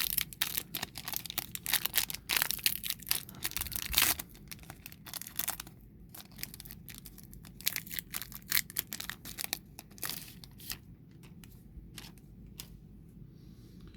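Foil booster-pack wrapper being torn open and crinkled: dense crackling for about the first six seconds, then sparser, quieter crinkles and ticks.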